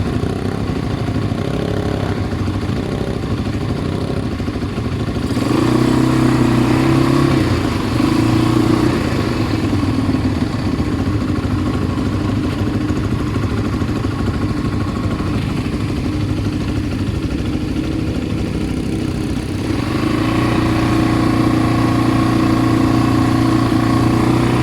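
ATV engine running as it is ridden. The throttle opens about five seconds in and again about twenty seconds in, each time giving a louder, steady engine note.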